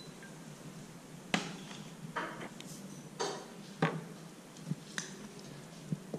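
Light clatter of kitchenware on a countertop: a few sharp knocks and clinks, the loudest about a second and a half in, with two brief rustles between them.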